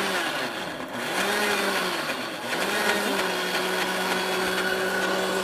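Countertop blender pureeing maraschino cherries in their juice. The motor's pitch rises and falls about three times over the first three seconds as the fruit churns, then holds steady.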